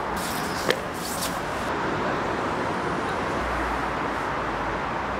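Steady distant city traffic hum. In the first two seconds a sneaker is pulled on: short rustles and one sharp click just under a second in.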